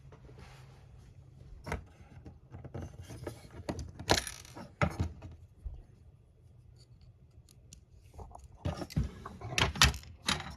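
Small die-cast metal model parts and a screwdriver being handled: scattered clinks and rattles, busiest about four seconds in and again near the end.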